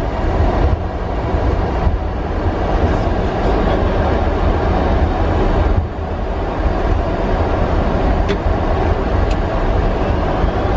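Steady flight-deck noise of an Airbus A300-600 taxiing: a heavy low rumble under a broad rush of engine and airflow noise. It dips briefly about six seconds in, and two faint clicks come near the end.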